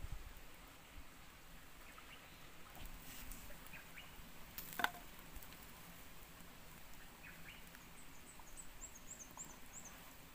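Faint crackling and ticking from a wood fire and embers under skewered pork intestines grilling, with one sharp pop about five seconds in. A quick run of high, thin chirps comes near the end.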